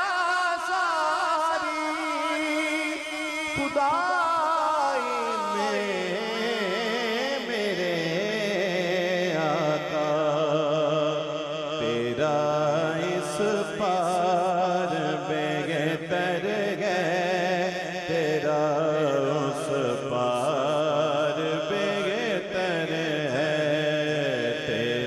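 Male voice singing a long, wordless, ornamented melodic passage of a naat, the pitch bending and wavering through drawn-out notes between verses.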